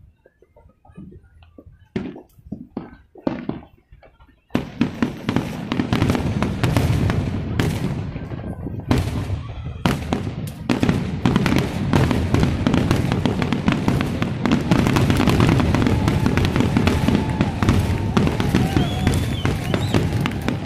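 A few scattered thumps, then about four seconds in a fireworks finale barrage starts suddenly: continuous rapid booms and crackling from many shells bursting at once.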